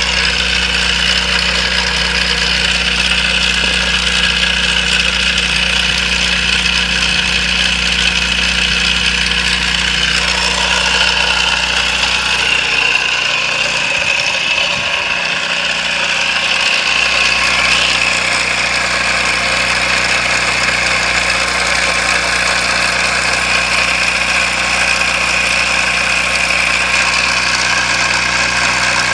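Small four-stroke engine with a GEET fuel processor, running steadily at idle on propane.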